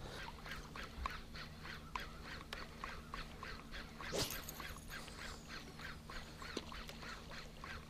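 A walk-the-dog topwater musky lure being twitched back across flat calm water, making a regular series of faint pops about three times a second. One louder pop comes about four seconds in.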